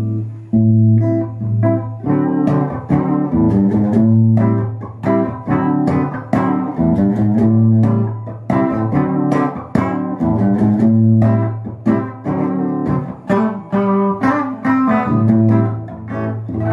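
Epiphone electric guitar played through a Behringer Europort PPA2000BT portable PA speaker: a fast, loud run of picked notes and chords.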